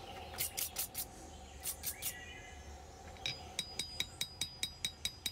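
Hammer striking hot steel on an anvil while drawing out the bevels of a small blade from thin stock. A few separate blows in the first two seconds, then an even run of about five ringing strikes a second from a little past halfway.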